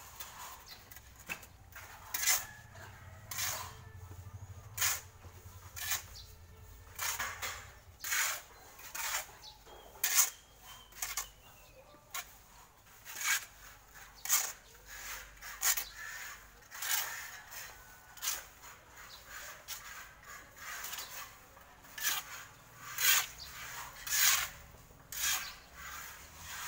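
Steel shovel scraping and scooping through a pile of sand and cement on hard ground, about one stroke a second: mortar being mixed by hand.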